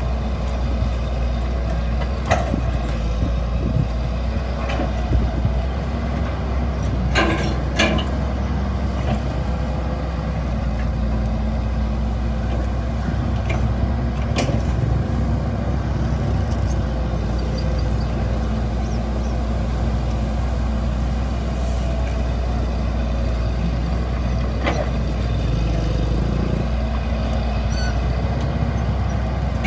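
Excavator's diesel engine running steadily, with a few sharp knocks over it, two close together about seven seconds in.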